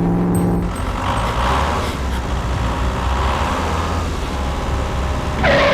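A vehicle engine running steadily, as a sound effect. A held low tone ends just under a second in, and a short louder sound comes near the end.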